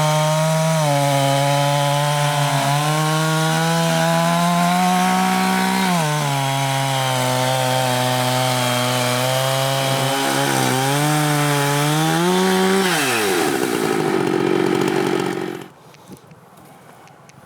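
Gas chainsaw on a homemade Alaskan-style chainsaw mill ripping lengthwise through a heart pine log at full throttle, its pitch sagging briefly twice under load. About 13 seconds in the throttle is let off and the engine winds down. The sound then drops away to quiet with a few small clicks.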